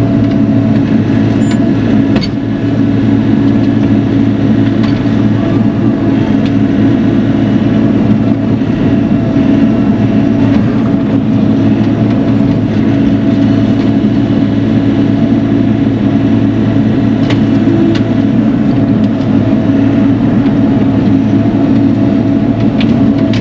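Bobcat E42 mini excavator's diesel engine running steadily under working load, with a few faint clicks and knocks from the machine.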